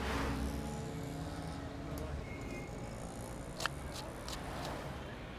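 Faint busy city background: a steady low hum of traffic and people, with a few sharp clicks or clinks about three and a half to four and a half seconds in. Background music dies away in the first moments.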